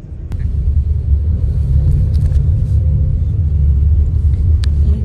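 Steady low rumble of a bus's engine and road noise heard from inside the passenger cabin, growing louder within the first second and then holding.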